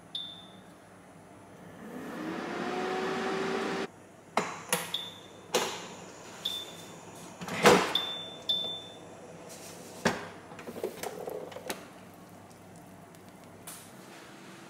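Electric multi-pressure cooker's touch control panel beeping as its buttons are pressed while the cooking time and pressure are set, several short high beeps with a few clicks and knocks between them. A rising hum lasts about two seconds near the start.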